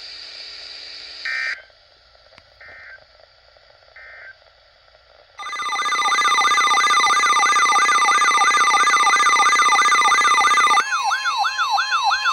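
Emergency Alert System alert for a tornado warning: three short data-burst beeps of the header, then a loud alarm of a steady tone overlaid with a wailing siren sweep repeating about three times a second, which changes pattern near the end.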